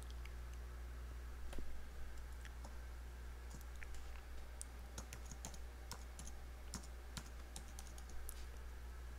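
Typing on a computer keyboard: scattered key clicks, then a quick run of key presses in the second half, over a steady low hum.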